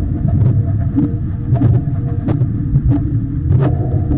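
Wind rumbling over a helmet camera's microphone aboard a sailing dinghy under way, with irregular sharp knocks, roughly one or two a second.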